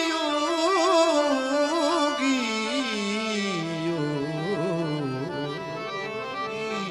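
Male devotional bhajan singer holding one long, heavily quavering note on 'yogi' that slides slowly down in pitch, over the steady sustained tones of a harmonium. The note fades out near the end.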